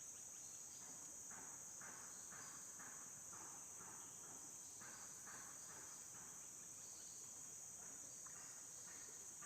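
Insect chorus: a steady high-pitched drone of crickets or cicadas, with softer pulsed calls beneath it repeating about twice a second.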